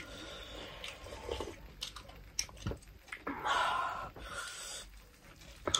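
Close-miked mouth sounds of eating: soup slurped from a bowl, chewing with small wet clicks, and audible breathing. A louder, longer hissing breath comes about three and a half seconds in.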